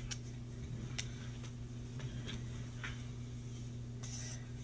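Steady low hum of room tone with a few faint ticks, and a short rustle about four seconds in.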